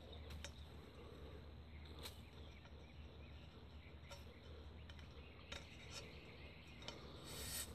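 Very faint handling sounds of paracord being worked around bundled aluminium tripod poles: a few small scattered clicks and a brief rustle near the end, over a low steady outdoor hum.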